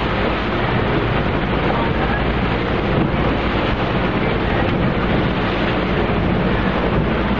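Steady wind rumble buffeting the microphone aboard a boat under way, over the rush of the sea and the boat's running engine.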